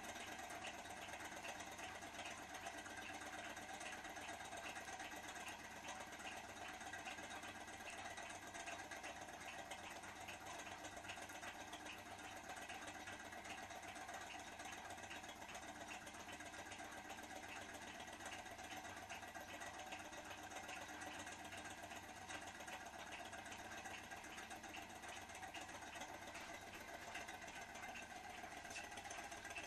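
Small L-9 thermoacoustic toy engine running on its methylated-spirit lamp: the single piston and flywheel keep up a faint, even mechanical whir with light regular ticking. The engine seems to be slowing down as it warms, which the owner isn't sure is normal.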